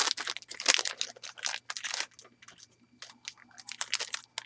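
A baseball card pack's wrapper being torn open and crinkled by hand: a dense run of sharp crackles over the first two seconds or so, then scattered crinkles.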